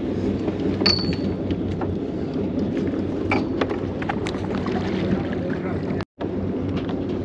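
A boat's engine running steadily with a low hum, mixed with wind and water noise. A few sharp clicks and a brief high squeak come about a second in, from handling the fishing reel. The sound drops out for an instant near the end.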